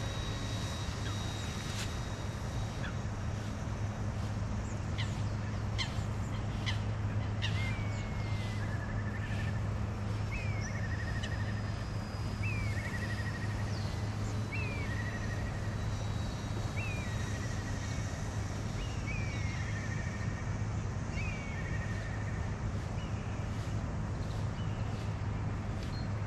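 A bird calls over and over, roughly every two seconds, each call a short falling note followed by a brief buzzy trill. A steady low hum runs underneath.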